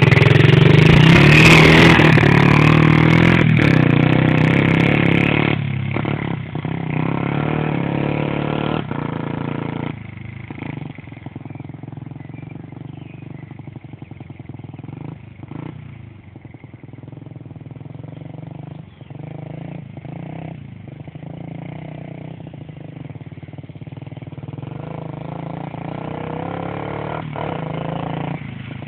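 A 50cc pit bike's single-cylinder engine revving hard close by as it pulls away, then fading as the bike rides off, and growing louder again near the end as it heads back.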